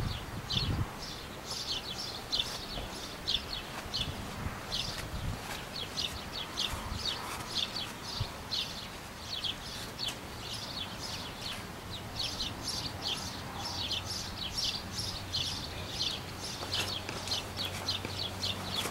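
A small bird chirping over and over, short high falling chirps about three a second, over a faint low hum.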